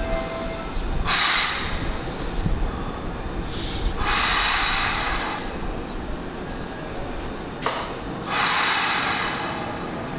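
Hanshin 8000 series electric train at the platform: a low rumble, with three bursts of hiss a few seconds apart and a sharp click before the last.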